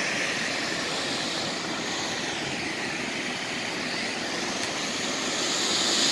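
Floodwater from a swollen river pouring over the full width of a waterfall and churning through the rapids below: a steady, dense rush of water, growing a little louder near the end.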